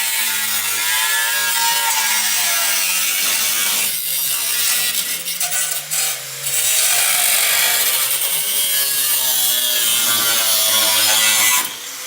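Power tool cutting into metal, a loud rasping noise whose pitch wavers as the load changes. It eases off briefly twice, about four and six seconds in, and stops abruptly near the end.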